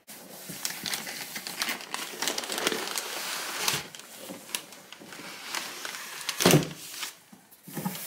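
Wrapping paper rustling and crinkling as a paper-wrapped parcel is slid out of a cardboard box, with one louder thump near the end.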